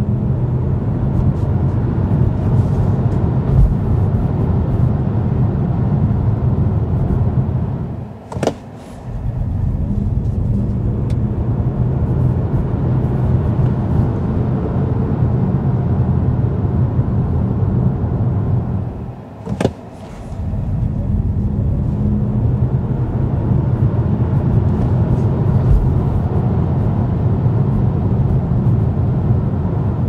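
Low, steady road and tyre rumble inside the cabin of a BYD Seal Performance electric car during full-power runs up to about 100 km/h and the braking that follows. The rumble drops away briefly twice, about 8 and 20 seconds in.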